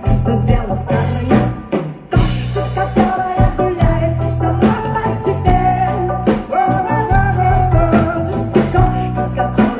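Live rock band playing an instrumental passage with drum kit, bass and guitar. The band drops out briefly about two seconds in and comes back with a cymbal crash, then a long wavering melody line is held over the steady drum beat.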